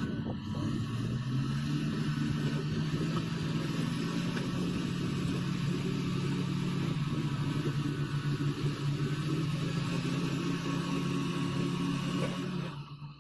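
Heavy earthmoving machine's engine running, rising in pitch about a second in and then holding steady, before cutting off abruptly near the end.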